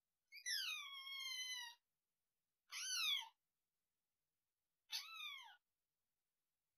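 Kitten meowing: three high-pitched calls that fall in pitch, the first long and drawn out, the next two short.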